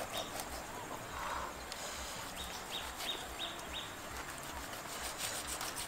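Quiet outdoor background with a run of five short, high chirps from about halfway in.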